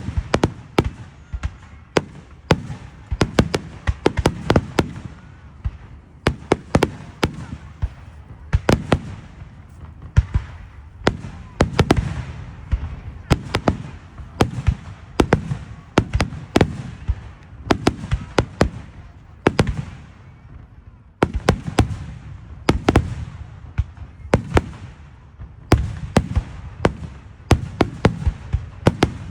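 Fireworks display: a continuous barrage of aerial shells bursting, often several sharp bangs a second, each trailed by a low rumble.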